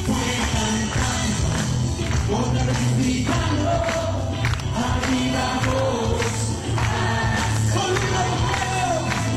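Congregation singing a worship song with musical accompaniment, hands clapping along to the beat.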